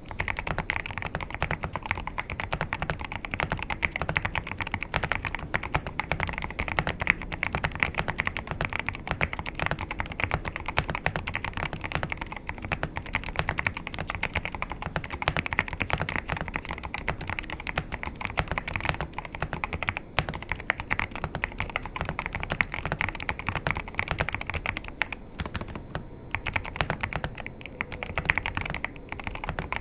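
Continuous fast typing on a stock GMK61 mechanical keyboard with Akko Rosewood switches and SA profile keycaps: a dense, unbroken stream of key clacks.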